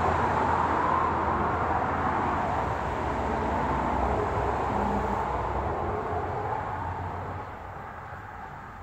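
A passing road vehicle's rushing noise, slowly fading away over several seconds as it recedes.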